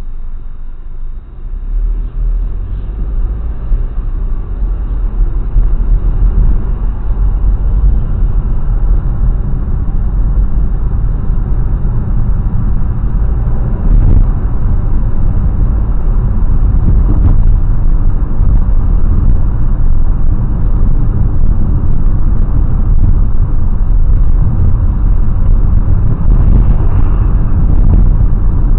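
Car on the move: a steady low rumble of road and engine noise that builds over the first few seconds, then holds at a constant level.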